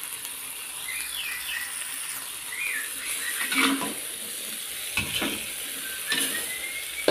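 Long beans and dried shrimp sizzling steadily in an aluminium wok, with a metal spatula scraping and stirring through them three times in the second half.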